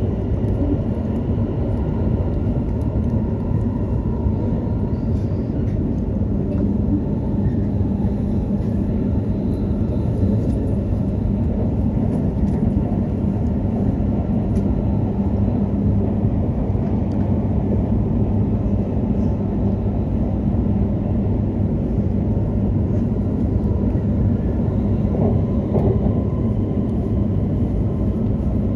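Hokuriku Shinkansen train running at a steady pace, heard inside the passenger cabin: an even low rumble with a faint hum, no distinct events.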